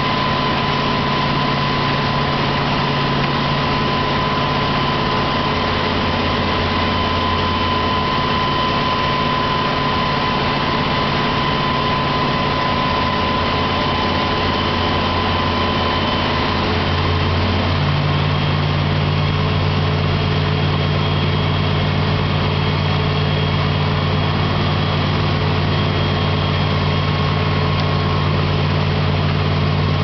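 Heavy construction machinery's diesel engines running steadily, with a steady high whine over the engine drone. A little over halfway through, the engine note steps up and gets a bit louder.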